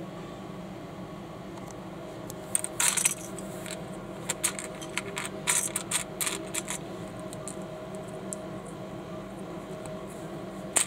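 Small plastic building bricks clicking and clattering as they are picked through by hand, with a quick run of sharp clicks from about two and a half to seven seconds in and one more near the end, over a steady background hum.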